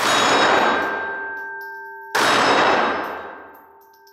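Two pistol shots from a Beretta 3032 Tomcat .32 ACP pocket pistol, about two seconds apart. Each is a sudden bang that trails off in a long ringing decay.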